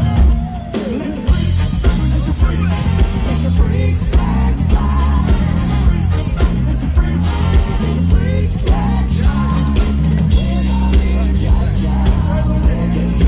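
A rock band playing live, loud and bass-heavy, with a drum kit keeping the beat, recorded on a phone. The music dips briefly just after the start, then carries on at full level.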